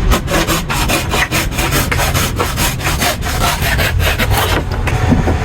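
Wood being sawn by hand in quick repeated strokes.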